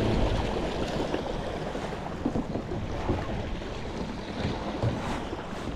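Steady wind and water noise at the kayak, with a few light knocks.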